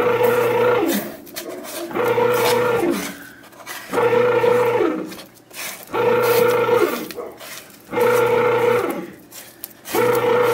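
KBS bread maker's kneading motor in the mixing stage of its cake setting, turning the paddle through the batter in pulses: about a second of steady humming every two seconds, each run winding down with a falling pitch.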